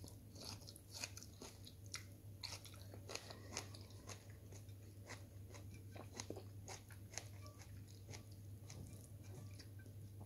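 Close-up sounds of a person chewing food eaten by hand: many short, soft, wet clicks and crunches of the mouth, faint, with a low steady hum underneath.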